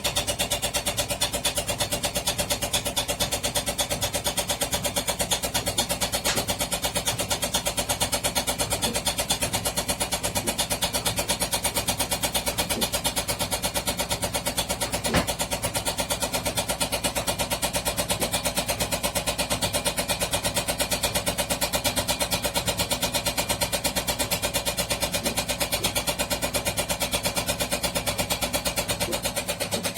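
Washing machine on its spin cycle, the drum turning fast with a rapid, even pulsing and one sharp knock about halfway through.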